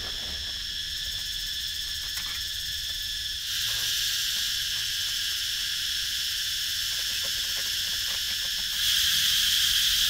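Steady chorus of insects in several high, unbroken tones, stepping louder about three and a half seconds in and again near the end, with a few faint knocks.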